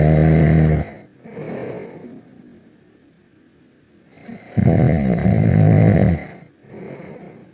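Loud snoring: a long, pitched snore followed by a softer breath out, happening twice a few seconds apart.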